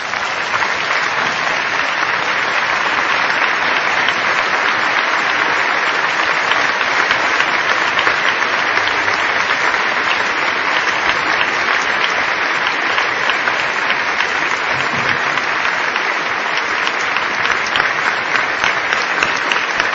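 A large audience applauding, steady and loud throughout.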